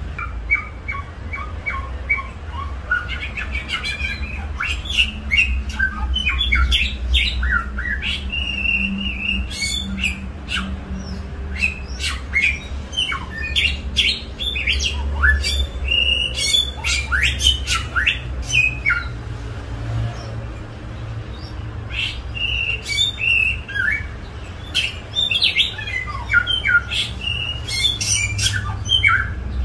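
A songbird singing a varied song of clear whistles, quick sliding notes and sharp harsh calls, almost without a break, over a steady low rumble.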